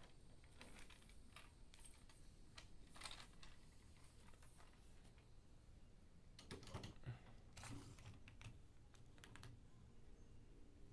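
Faint, irregular clicks and taps of a long pole's hook being fitted to the crank attachment at the top of a yurt's dome vent.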